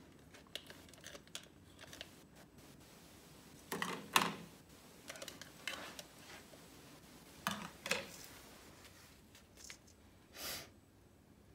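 Faint, scattered clicks and clacks of plastic toy kitchen things being handled: a spatula and toy frying pan moved about and toy bacon set on a plate. A few louder clacks come about four and eight seconds in.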